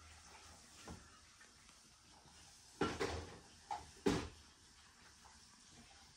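Quiet room with a soft knock about a second in, then three louder thumps and knocks close together around three to four seconds in.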